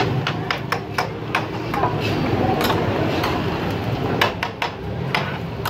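Metal spatula clinking and scraping on a flat-top griddle as burger patties are pressed and turned: a run of sharp metallic taps, quick in the first second, sparser after, with another cluster a little after four seconds.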